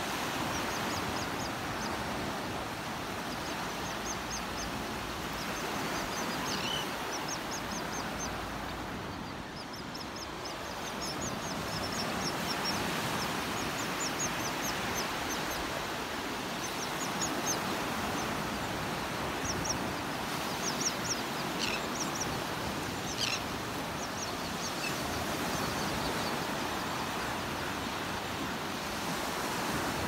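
Surf washing steadily on the beach, with many short, high bird calls in quick runs over it, from a flock of seabirds on the sand. A few louder single calls stand out a little past the middle.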